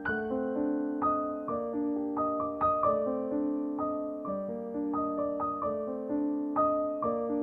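Gentle background piano music: a soft melody of notes struck one after another, each ringing out and fading.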